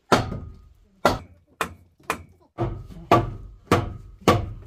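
About eight hammer blows on rotten wooden boards at the foot of a wall, roughly two a second, some followed by a faint ringing note. The blows are knocking rotted wood and stuck nails loose.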